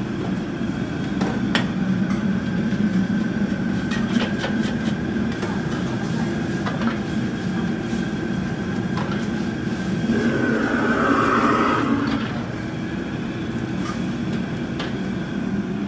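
Gas wok burner running with a steady roar while a bamboo wok brush scrubs and a metal ladle scrapes and knocks against the wok, the wok being rinsed and cleaned on the flame. A hissing swell of sizzling steam rises about ten seconds in.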